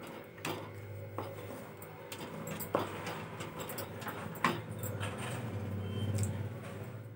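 Wooden spatula stirring a thick, gel-like cornflour halwa mixture in a steel kadai, scraping with several sharp knocks against the pan, over a low steady hum.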